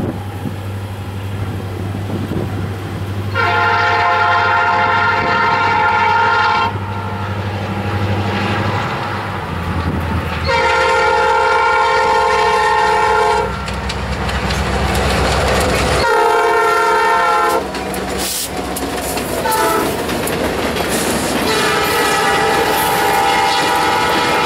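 EMD GP40 diesel locomotive sounding its horn for a grade crossing: two long blasts, a short one, then a long one held as it reaches the crossing, over the low rumble of its working engine. Near the end, freight car wheels clack over the rail joints as the train rolls by.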